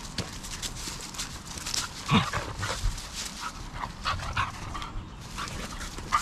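A dog giving short whines and yelps, the loudest about two seconds in, over a run of light clicks.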